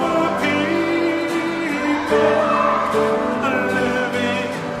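A group singing a song live, holding sung notes, with acoustic guitar accompaniment.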